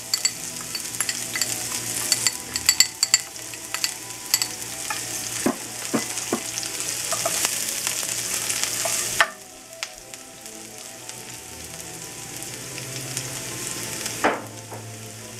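Minced garlic and sliced lemongrass sizzling and crackling in hot vegetable oil in a stainless steel skillet, stirred with a metal utensil that clicks against the pan a few times. The sizzle drops abruptly to a quieter hiss about nine seconds in.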